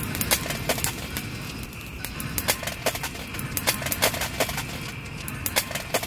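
Split firewood burning in a metal fire pit, crackling with irregular sharp pops several times a second, over a faint steady chorus of frogs.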